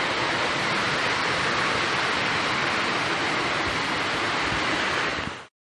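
Steady rushing roar of water from a nearby waterfall, even and unbroken, cutting off abruptly about five and a half seconds in.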